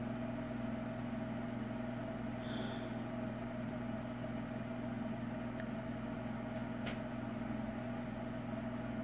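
Steady low machine hum with a few fixed tones, with one faint click about seven seconds in.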